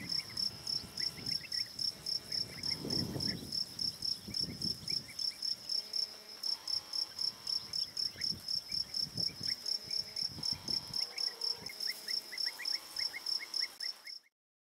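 A cricket chirping steadily and evenly, about four high chirps a second, with a few low rumbles now and then; it stops abruptly near the end.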